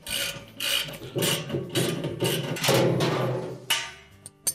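Socket ratchet being worked back and forth to tighten a washer's tub bolt nut, a rasping ratchet burst on each stroke about three times a second, stopping near the end with a couple of sharp clicks. Soft background music runs underneath.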